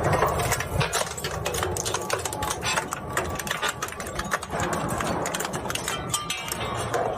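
Plastic shredder machine running, with a low rumble and a dense, irregular stream of sharp cracks and snaps as plastic is torn up.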